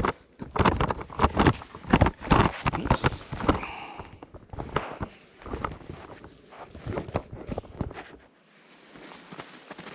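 Irregular footsteps and knocks of handling, loudest and densest in the first few seconds, growing sparser and dying away to a quiet background about eight seconds in.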